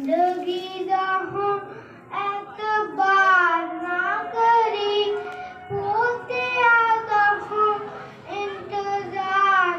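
A young boy singing a Sikh devotional song about the martyrdom of the younger Sahibzade into a microphone, held notes that glide up and down, sung in phrases with brief breaks between them.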